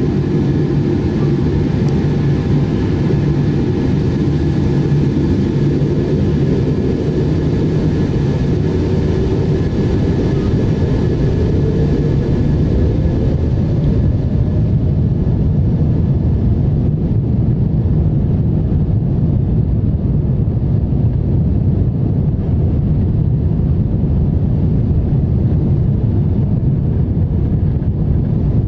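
Cabin noise of a Boeing 747-8 taxiing, its GEnx turbofan engines running at low power. It is a steady low-pitched noise, with a faint whine that rises in pitch about ten seconds in.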